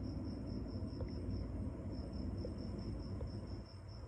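An insect trilling steadily: a high-pitched, evenly pulsing tone over low background rumble.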